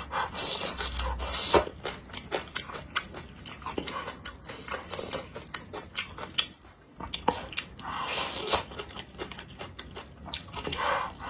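Close-miked slurping and wet chewing of soupy rice noodles and pickled greens, with many small mouth clicks. There are longer slurps near the start and again about eight seconds in.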